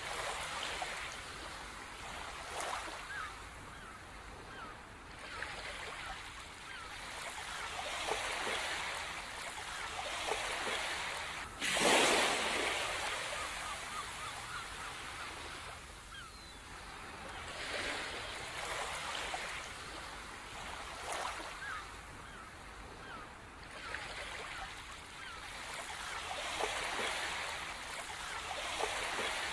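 Ocean waves washing ashore, swelling and fading every few seconds, with one louder breaking wave about twelve seconds in.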